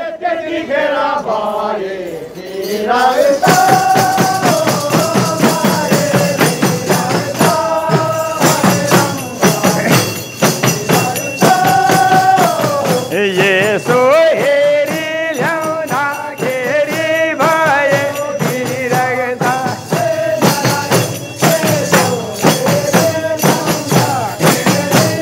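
Nepali khaijadi bhajan: a group of men singing a devotional song together over khaijadi frame drums beaten in a fast, steady rhythm. A lone voice glides down and back up before the drums and the full chorus come in about three seconds in.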